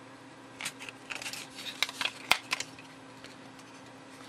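Handling noise from the plastic case and circuit board of a small handheld oscilloscope being pulled apart by hand: a cluster of light clicks and scrapes starting about half a second in and lasting about two seconds, with one sharper click near the middle.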